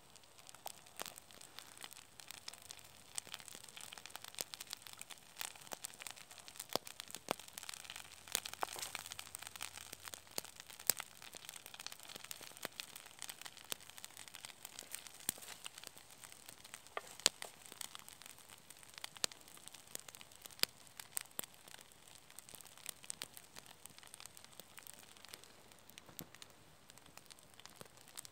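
An egg frying in a black frying pan over a wood campfire: a steady hissing sizzle full of rapid pops and crackles from the spitting fat and the burning wood.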